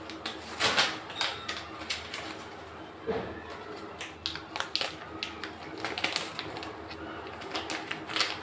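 Clear plastic packaging crinkling and crackling in the hands as wristwatches in plastic sleeves are unwrapped and handled, in irregular sharp crackles.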